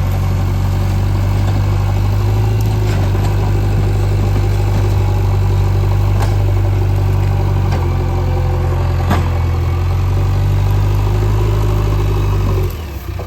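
JCB 3DX backhoe loader's diesel engine running steadily, with a few sharp knocks over the top; near the end the engine note drops away suddenly.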